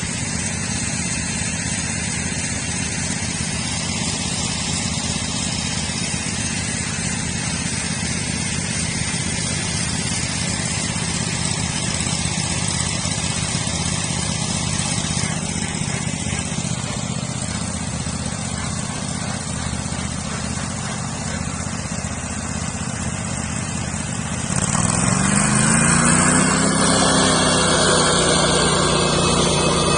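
Small engine of a homemade sawmill running steadily; about 25 seconds in it rises in pitch and gets louder, then holds at the higher speed.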